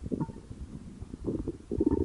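Human stomach growling: irregular gurgles and rumbles, with a couple of brief higher-pitched squeaks.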